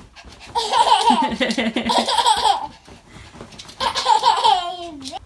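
A toddler girl laughing hard in two high-pitched bouts, the second starting a little under four seconds in.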